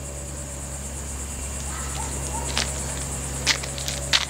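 Steady, high-pitched chorus of insects trilling, over a steady low hum. Three sharp clicks come in the second half.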